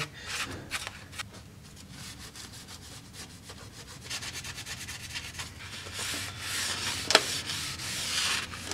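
A cloth shop rag scrubbing the metal gasket surface on the underside of an automatic transmission case, in rapid rubbing strokes that get louder about halfway through. There is a single sharp click about seven seconds in.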